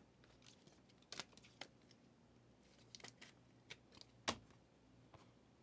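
Faint, scattered clicks and rustles of trading cards being handled and flipped through. The sharpest click comes a little after four seconds in.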